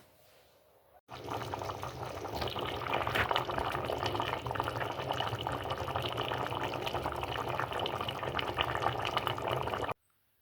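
Running water, a steady splashing stream that starts abruptly about a second in and cuts off just before the end.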